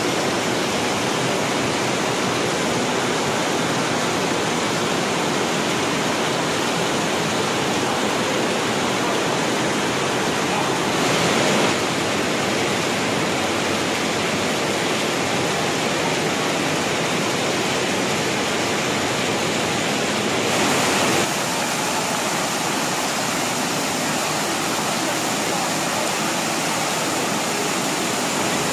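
Steady heavy rain falling on wet pavement, an even hiss that swells briefly twice.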